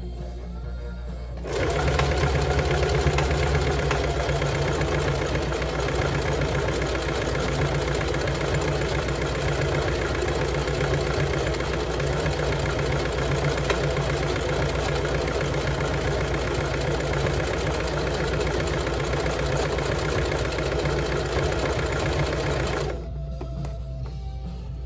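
Singer Heavy Duty sewing machine running at a steady speed, stitching through climbing rope; it starts about a second and a half in and stops shortly before the end.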